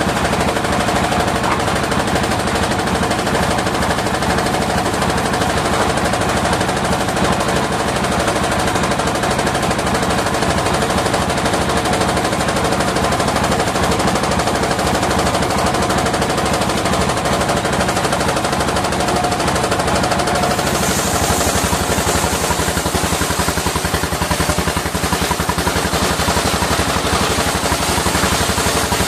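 Engine-driven circular sawmill running, its engine giving a rapid, even pulsing that goes on without a break; about three-quarters of the way through, the sound changes and a high hiss comes in.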